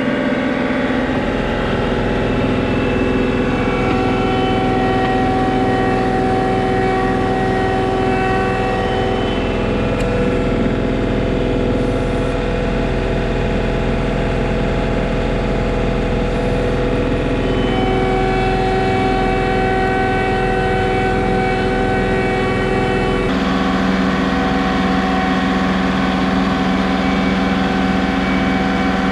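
John Deere 2038R compact tractor's three-cylinder diesel engine running at a steady speed while pulling a middle buster plow to lift potatoes. The engine note shifts abruptly about 23 seconds in.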